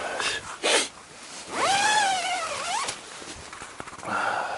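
A man's drawn-out vocal groan, rising and then falling in pitch for over a second, as he stretches while getting up in his tent, between short rustling noises of gear and tent fabric.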